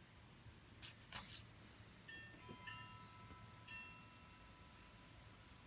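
Quiet room with a couple of brief paper rustles about a second in, likely magazine pages being handled. From about two seconds in a faint ringing tone sounds, with a few short chime-like notes over it, and it fades out near the end.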